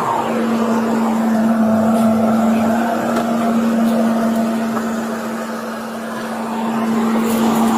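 Motor vehicle noise: a steady hum under a rushing haze that eases slightly around six seconds in and swells again.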